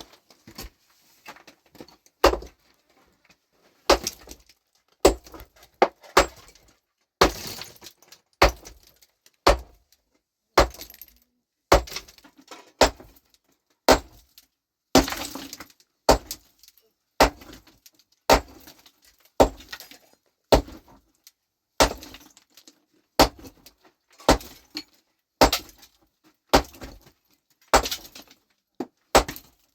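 Repeated hard blows of a hammer on rock, about one a second, each a sharp crack, as rocks are broken up.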